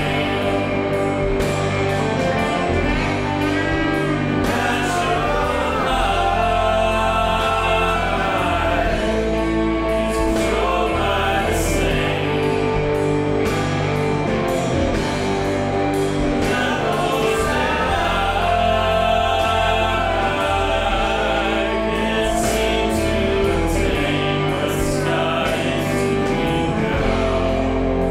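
Music with singing voices over a steady low bass.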